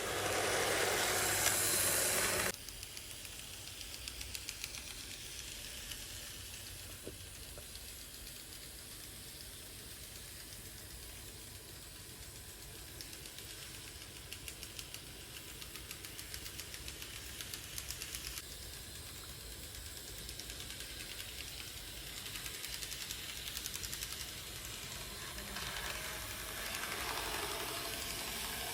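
N-gauge model train's Bernina power unit running, with a rapid flapping, ticking rattle: the abnormal 'pata-pata' noise the unit makes while running. A louder hiss in the first two and a half seconds stops abruptly.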